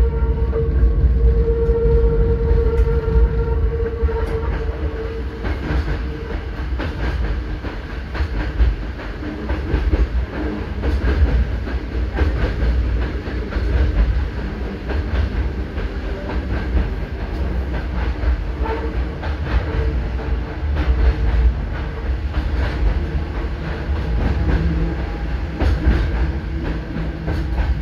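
Electric train running on the rails: a continuous low rumble with scattered clicks from the wheels. A steady whine in the first few seconds fades out.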